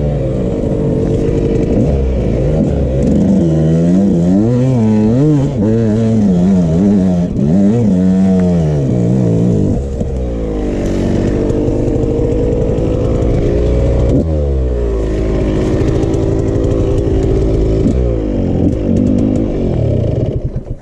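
Dirt bike engine being ridden, its note rising and falling with the throttle; the pitch climbs sharply several times in the second half as it revs up, then drops away at the very end.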